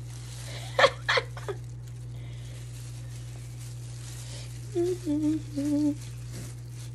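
Plastic-gloved hands dipping chicken tenders in egg batter and dredging them in flour: two short rustles about a second in, over a steady low electrical hum. A few hummed notes in a person's voice come near the end.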